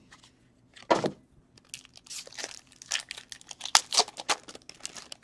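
A pack of trading cards being torn open, its wrapper crinkling and tearing in quick irregular bursts for about three seconds, after one sharper handling noise about a second in.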